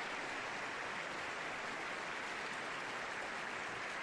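Large theatre audience applauding at the close of the opera: dense, even clapping at a steady level.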